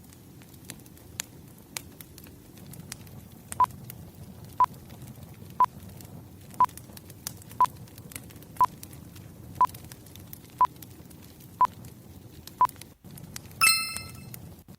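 Wood fire crackling softly, with a timer's short beeps counting down once a second, ten times, then a louder ringing chime near the end, marking the end of a focus interval.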